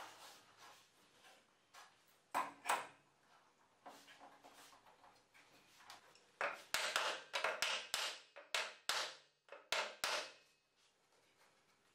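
Steel bar clamps being set against wood. Two loud knocks come about two seconds in, then a quick run of sharp clacks and clicks from about halfway until shortly before the end.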